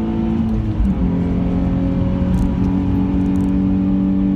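Nissan 350Z's 3.5-litre V6 heard from inside the cabin under way, with a gear change about a second in: the engine note drops in pitch with a brief jolt, then holds steady in the new gear.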